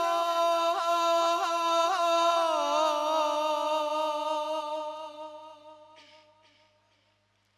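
A male radood's unaccompanied voice chanting a Shia latmiya lament, drawing out one long held note with small ornamental turns. The note fades away about six seconds in.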